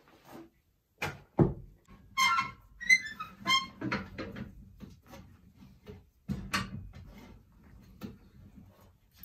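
Knocks and clatter from objects being handled, with a heavy thump about a second and a half in. A few short, high-pitched ringing tones follow between about two and four seconds in.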